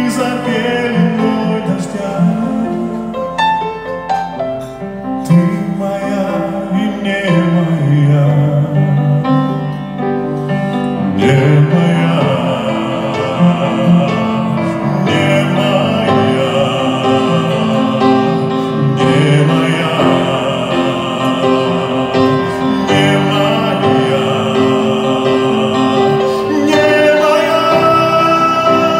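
Male vocalist singing into a microphone over grand piano accompaniment, performed live; the voice grows fuller and louder about eleven seconds in.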